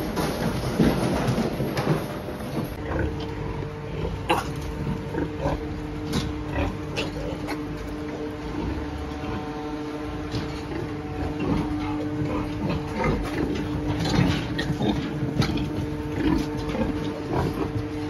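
Pigs grunting and squealing in a pig barn, a busy jumble of short calls, densest at the start. A steady two-note hum sets in about three seconds in.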